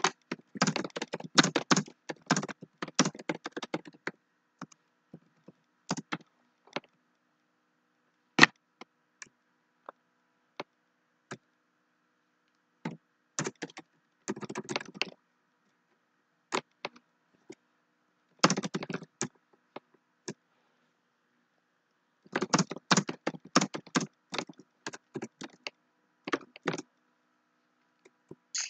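Typing on a computer keyboard: bursts of rapid key clicks, separated by pauses and a few single keystrokes. A faint steady hum runs underneath.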